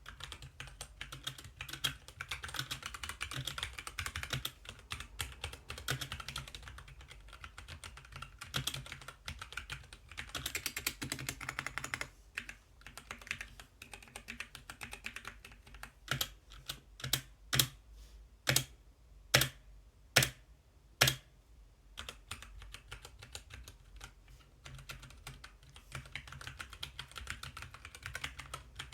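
Typing on a Blitzwolf BW-KB1 mechanical keyboard with Gateron Brown switches and ABS double-shot keycaps: a fast, steady clatter of key clicks. About halfway through, the typing gives way to a handful of single, louder key strikes about a second apart, then the fast typing resumes.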